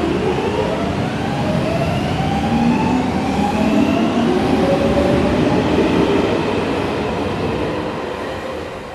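Electric light-rail train passing, its motors giving a whine that rises in pitch over the first few seconds over a rolling rumble. The sound is loudest around the middle and fades away near the end.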